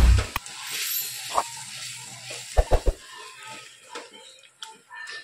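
Metal spoon stirring and mashing pav bhaji in a steel kadhai, knocking and scraping against the pan. There are a few sharp knocks, a cluster of heavier thumps about two and a half seconds in, then lighter repeated taps and scrapes.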